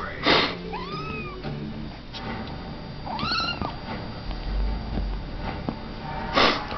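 Two kittens play-fighting, with two short kitten meows that rise and fall in pitch, one about a second in and one about three seconds in. There are two brief loud noisy bursts, one at the start and one near the end.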